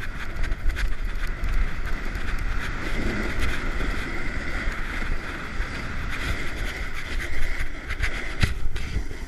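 Wind rumbling on the microphone and the steady scraping hiss of edges sliding over packed, groomed snow on a downhill run, with a couple of short knocks near the end.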